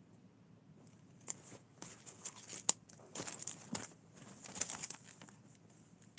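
Irregular crinkling and rustling with several sharp clicks, starting about a second in and dying away after about four seconds.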